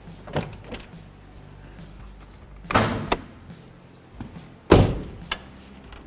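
Car door and hood-release clunks on a 2006 Toyota 4Runner as the newly installed hood latch is tested: a few light clicks, then two loud thuds about two seconds apart, each followed by a smaller knock.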